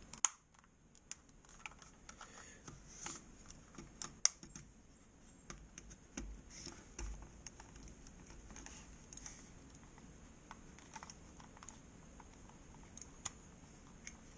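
A butter knife prying at the seam of a plastic trackball mouse shell: scattered small clicks, taps and scrapes of metal on plastic, with sharper clicks about a quarter-second in and about four seconds in. The shell does not come apart.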